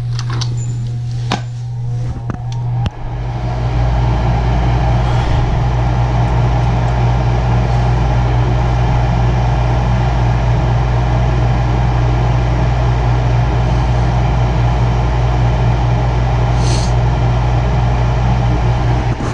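Lennox gas furnace starting up: a steady hum comes on with a few clicks, and about three seconds in a loud, even rush of moving air builds up and runs steadily.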